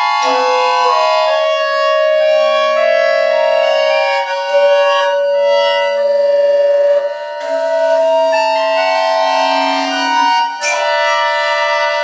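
A large wooden recorder and a button accordion playing contemporary music in long held tones. Several sustained pitches overlap into close chords that move to new notes every few seconds, with sharper attacks a little past the middle and shortly before the end.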